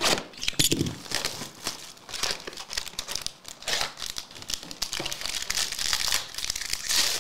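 Clear plastic shrink wrap and a trading-card pack wrapper crinkling and tearing as a hockey card box and its pack are torn open by hand.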